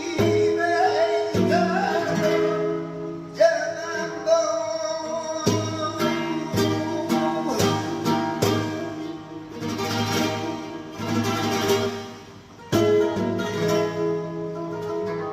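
Flamenco guitar playing a seguiriya, with strummed chords and a voice singing over it in places.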